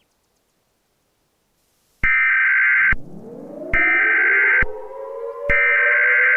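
Emergency Alert System SAME header: three bursts of screechy digital data tones, each about a second long with short gaps between them, starting about two seconds in. Under the last two bursts a lower tone glides up in pitch and levels off.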